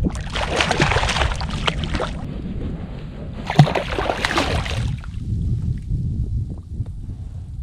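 A hooked fish splashing and thrashing at the water's surface beside a kayak as it is brought in, loudest about three and a half seconds in. Wind rumbles on the microphone throughout.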